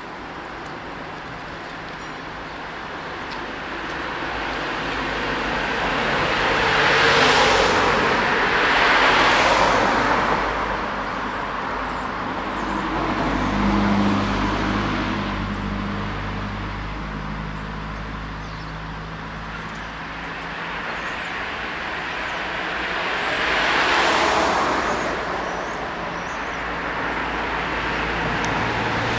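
Road traffic: motor vehicles driving past close by, one after another, the loudest pass-bys about a third of the way in and again near the end, with a low engine hum in between.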